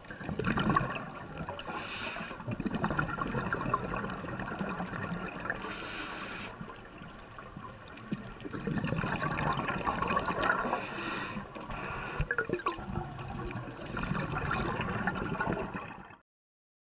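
Underwater scuba-diving sound: gurgling bubbles of exhaled air, swelling and fading in surges every few seconds, with short hisses about two, six and eleven seconds in. It cuts off suddenly near the end.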